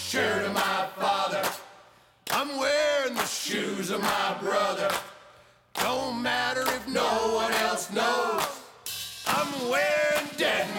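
A group of men and women singing together in harmony around one microphone, with handclaps keeping a steady beat. The singing breaks off briefly twice before coming back in.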